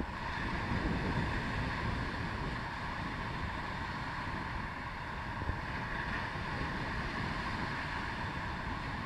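Wind rumbling on the microphone over a steady, even hiss.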